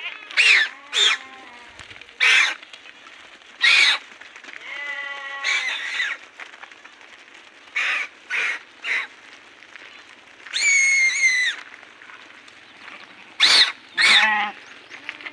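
A herd of goats bleating over and over: about a dozen short, pitched calls at uneven intervals, with one longer, higher call about ten seconds in.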